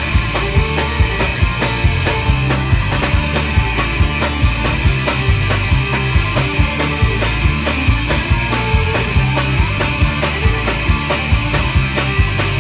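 Folk-punk band playing live: fiddle, guitars, bass and drums in an instrumental passage with no singing, driven by a steady, fast drumbeat and a heavy, pulsing bass line.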